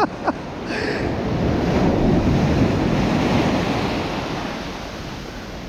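Surf on a sandy beach: a wave swelling and washing in, then easing off, with wind buffeting the microphone.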